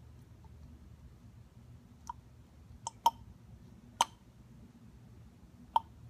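Plastic syringe being worked into a plastic oil-sample bottle, dispensing collected blow-by oil: a handful of short, sharp clicks and small pops, spread unevenly over a few seconds, over a steady low hum.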